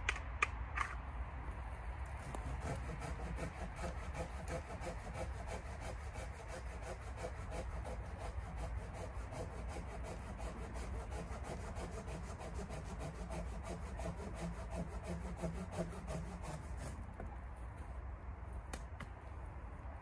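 Hand saw cutting through wood with quick, even back-and-forth strokes, starting about two seconds in and stopping a few seconds before the end. A couple of sharp knocks come right at the start.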